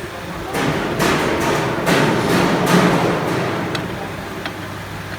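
A run of knocks and clatter, roughly two a second, with a rising and falling rush of noise, over a steady low machine hum.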